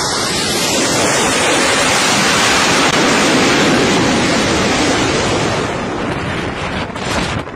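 Jet engine noise from an F/A-18-type fighter on an aircraft carrier's flight deck: a loud, steady roar that swells at the start and eases off near the end.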